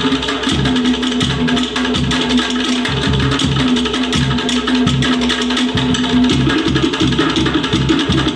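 Cook Islands drum ensemble: wooden slit log drums struck in a fast, dense rhythm over a steady bass drum beat about twice a second, with a long held note sounding over the drums through much of it.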